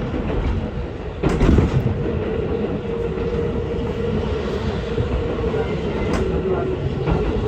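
Ichibata Electric Railway train running at speed, heard from inside the carriage: a steady rolling rumble with a constant hum. Sharp clacks of the wheels over rail joints come about a second in and again near the end.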